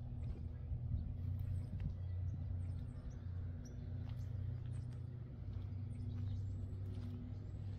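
Outdoor ambience: a steady low mechanical hum, with small birds chirping now and then.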